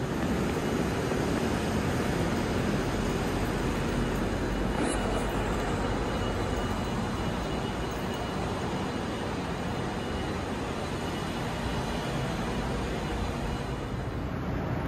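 Steady low rumble of city ambience with no speech or music, of the kind of distant road traffic.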